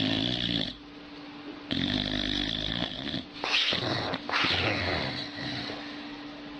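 Dog snoring: about four rasping breaths, each around a second long, with a high squeaky whistle partway through.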